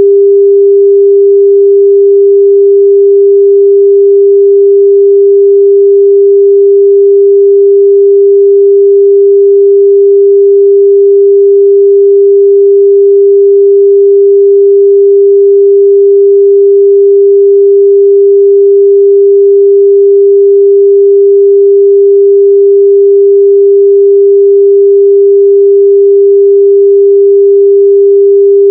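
A loud synthetic sine tone held unbroken at one fairly low pitch, with no other sound. It is played as a locator noise to find lost AirPods or Bluetooth earbuds.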